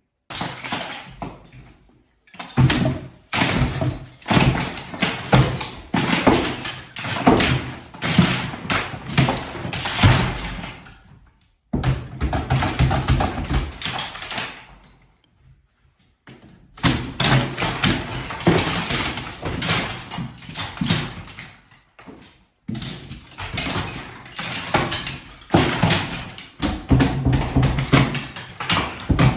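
Demolition clatter: repeated knocks, thuds and rattling as ceiling and plaster are pried and broken off and debris falls. The sound comes in five stretches, each cut off by a brief silent gap.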